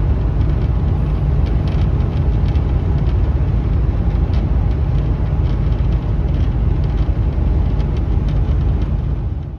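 Steady loud rumble of a moving motor vehicle, with faint ticks and rattles over it; it cuts off abruptly at the very end.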